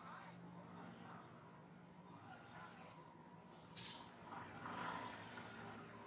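Faint outdoor ambience with a bird's short rising chirp repeated three times, about every two and a half seconds, and a brief crackle just past the middle.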